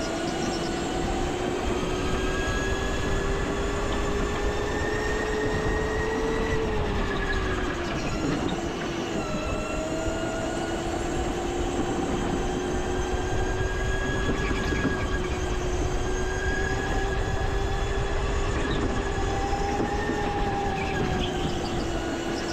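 Go-kart running at speed on the track: a steady whine over rumbling noise. The whine dips in pitch about eight seconds in, then picks up again.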